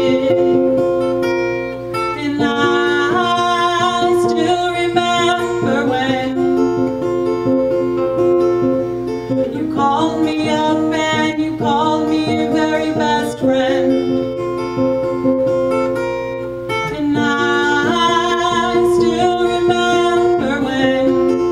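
Acoustic guitar played in changing chords, with a woman singing over it.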